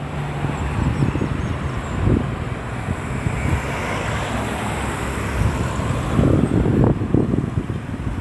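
Road traffic moving past a busy roundabout, one vehicle swelling up and fading as it passes about halfway through, with wind buffeting the microphone.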